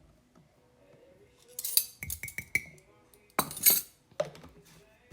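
A metal measuring spoon clinking against a cup a few times in quick succession, with a short ringing after the taps, between two brief rustling scrapes.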